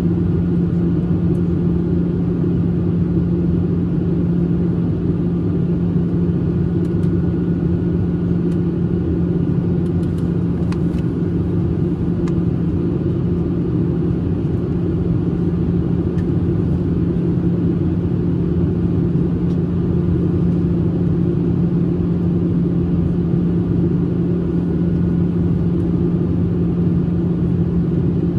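Steady cabin noise of a Boeing 737-800 in cruise flight, heard inside the cabin over the wing: the low, even rush of its CFM56-7B jet engines and airflow, with a steady low hum running through it.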